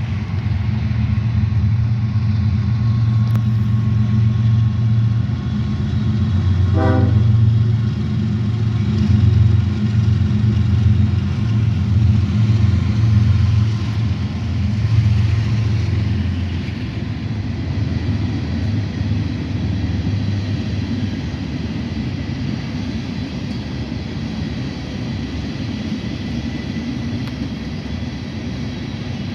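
Diesel locomotive engine running with a steady low drone that eases a little about two-thirds of the way through.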